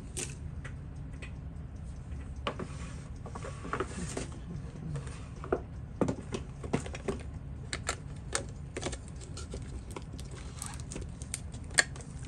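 Scattered light clicks and taps at irregular intervals over a steady low hum.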